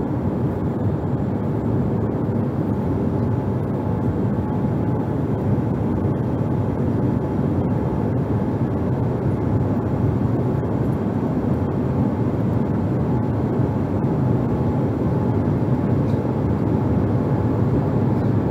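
Cabin noise of a Boeing 787-8 climbing out after takeoff, heard inside the cabin: a steady low rumble of engine and airflow noise with a faint steady whine.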